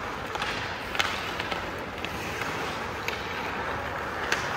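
Ice hockey play: skate blades scraping on the ice, with sharp clacks of sticks and puck, the loudest about a second in and another near the end.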